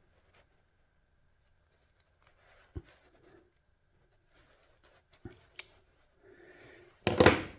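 Hand work on wiring: scattered small clicks and soft rustling of a tool and wire being handled, with a louder, brief burst of noise near the end.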